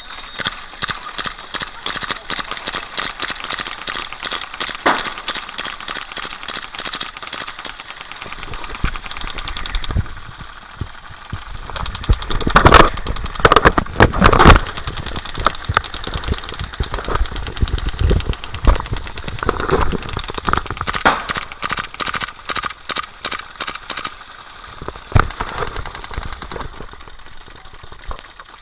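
Airsoft guns firing in rapid automatic bursts, a fast steady rattle of shots, with a cluster of much louder bangs about halfway through.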